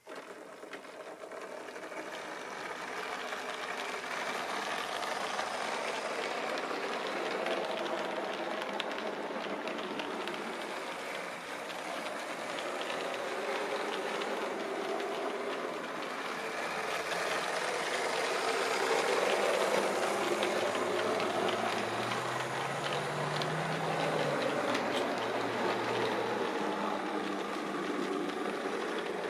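H0 scale model train, a TE-109 diesel locomotive with passenger wagons, running along layout track: a steady running noise full of fine clicks of the wheels on the rails, starting suddenly and growing slightly louder. About two-thirds of the way in a low tone rises and falls.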